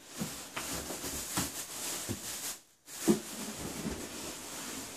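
Plastic wrapping crinkling and cardboard rubbing as a boxed television is worked out of its carton, with scattered crackles and small knocks. The sound drops out for a moment a little past halfway.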